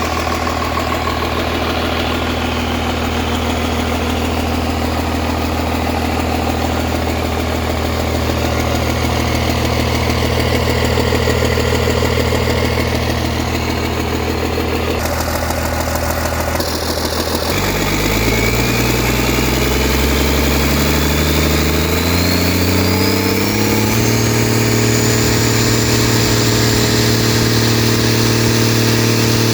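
Cummins diesel engine of a LiuGong 920D excavator idling steadily, then, a little over halfway through, revving up over several seconds with a high whine rising alongside, and holding at the higher speed.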